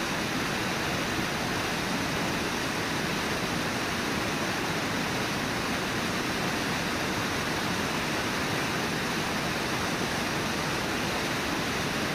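Brooks River water rushing: a steady, even wash of river noise.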